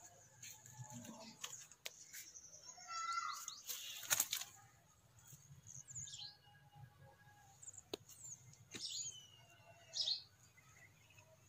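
Small birds chirping intermittently, with short high chirps and a few quick whistled slides in pitch, over a faint steady high hiss. There is a brief, louder noisy burst about four seconds in.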